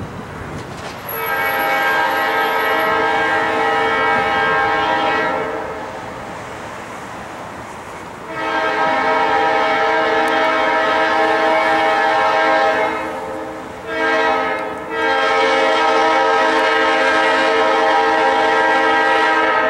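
Locomotive multi-chime air horn sounding the grade-crossing signal: two long blasts, a short one about fourteen seconds in, then a final long blast. Between blasts the light engine's running is heard more quietly.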